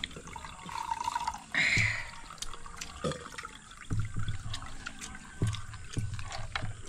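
Small shellfish being eaten by hand: shells clicking against each other and wet slurping as the meat is sucked out. The loudest slurp comes about a second and a half in.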